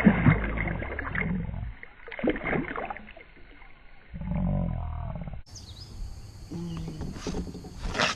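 Water splashing and sloshing as a bass is released back into the lake, with rough low handling noise on the microphone. About five and a half seconds in it cuts abruptly to a different, clearer recording with a few light knocks.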